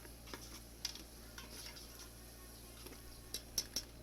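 A spoon knocking and scraping against a cooking pot while a tomato masala is stirred: scattered sharp clicks, a few in quick succession near the end, over a faint steady hum.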